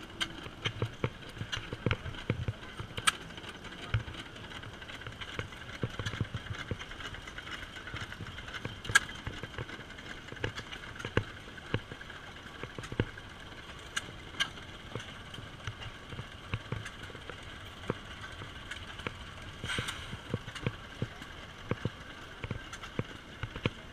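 Antique flywheel stationary gas engines running slowly, giving irregular exhaust pops and mechanical clicks over a steady faint hum.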